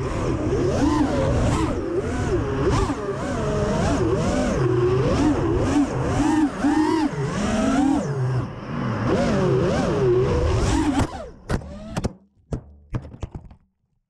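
FPV quadcopter's brushless motors and propellers whining, the pitch swooping up and down again and again with the throttle. About eleven seconds in the whine cuts off and a few sharp knocks and clatters follow as the quad comes down in the grass.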